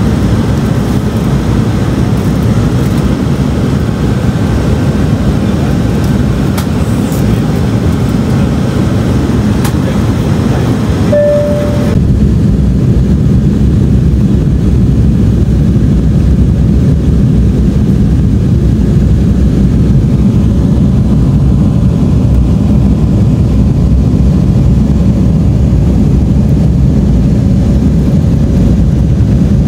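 Airliner cabin noise: a steady, loud engine and airflow rumble, deepest in the low end. A brief single tone sounds about eleven seconds in, and just after it the rumble becomes slightly louder and duller.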